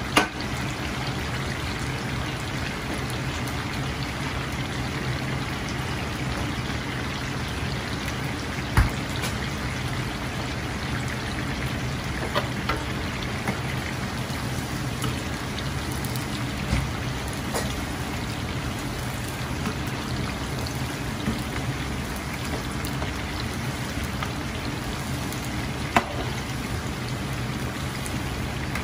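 Hot oil in a large wok bubbling and sizzling steadily as a big batch of battered chicken pieces deep-fries, with a few sharp metal clinks of a ladle against the wok.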